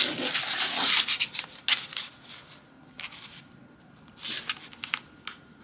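Fingers rubbing and scraping at a MacBook Pro's back cover as it is pushed to slide it off. The cover is not sliding. There is a dense stretch of scraping over the first second and a half, then scattered light scrapes and clicks.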